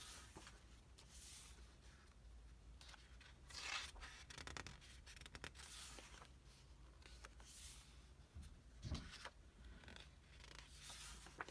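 Faint swishes and rustles of an art book's paper pages being turned by hand, several soft page turns in a row.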